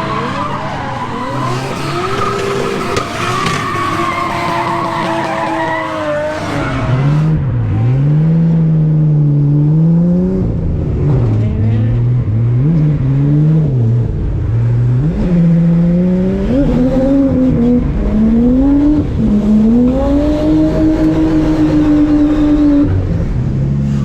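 Drift car's engine revving hard and repeatedly dropping back through a run, its pitch climbing and falling with throttle and gear changes, with tyres skidding.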